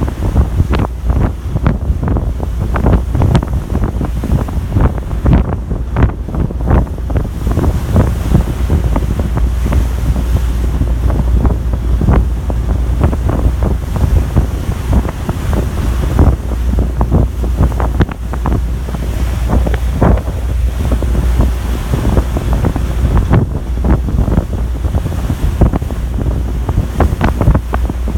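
Strong wind buffeting the microphone in constant irregular gusts, over a deep rumble of wind and sea, on the open deck of a car ferry under way.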